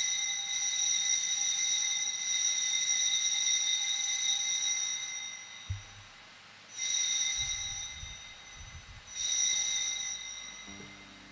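Small altar bell rung at the elevation of the chalice after the consecration: a high, clear ringing already sounding at the start fades away over about five seconds, then the bell is rung twice more, a couple of seconds apart, each ring dying away.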